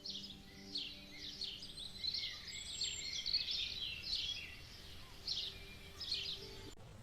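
Many small birds chirping and twittering together in a forest ambience, with faint steady tones underneath; it all cuts off suddenly just before the end.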